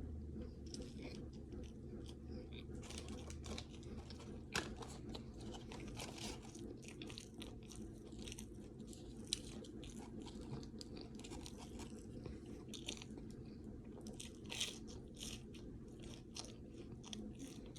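A person chewing food close to the microphone: many short, irregular crunches and wet mouth clicks over a steady low hum.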